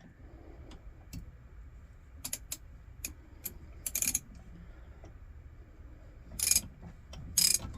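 Light metal clicks and clinks of a T55 Torx bit and wrench worked in a Coleman L427 lantern's burner tube to unscrew it, with two louder short rasping bursts near the end.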